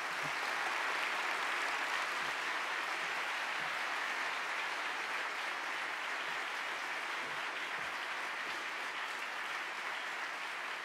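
Audience applauding, a steady, even clapping of many hands.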